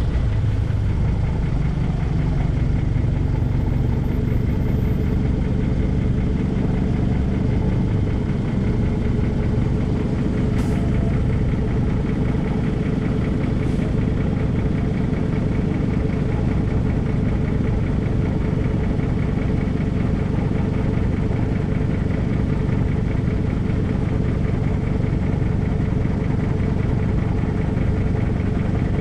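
Kia Rondo's exhaust idling steadily, heard close to the tailpipe: an even low engine hum that does not rise or fall.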